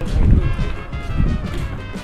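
Background music, with loud, irregular low thumps and rumble underneath.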